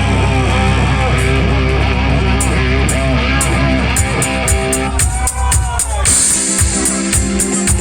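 Live rock band playing an 80s cover with electric guitar, bass and drum kit. About five seconds in, the heavy low end drops away and the drums carry on with a steady beat.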